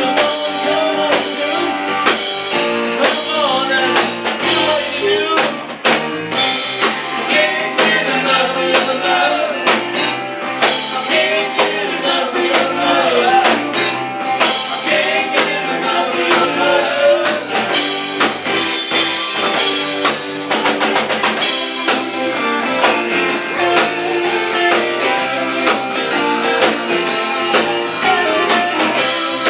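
Live rock band playing a song: drum kit keeping a steady beat under electric guitar, with a melodic lead line over it.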